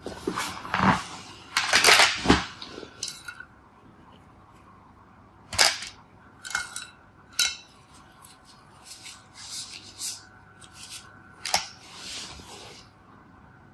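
Art supplies being handled on a desk, knocking and clattering together. A dense cluster of knocks comes in the first few seconds, then single sharp clicks follow at scattered intervals.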